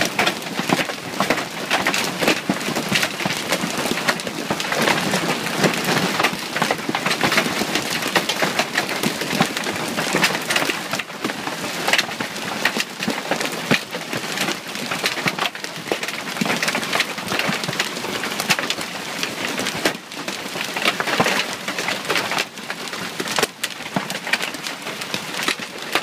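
Heavy hail pelting a lawn and the trees around it: a loud, steady rush of countless small impacts.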